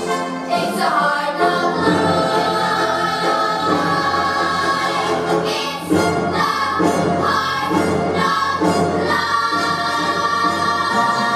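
Recorded show tune played back for a lip sync: a chorus of children's voices singing in unison over instrumental backing.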